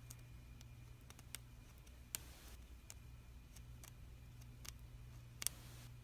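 Faint clicks and scratches of a toothpick picking lint out of an iPhone's Lightning charging port, with a brief scrape about two seconds in and the loudest click near the end. A low steady hum runs underneath.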